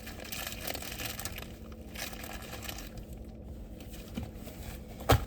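Faint rustling and handling noises as things are moved about, with one sharp knock about five seconds in.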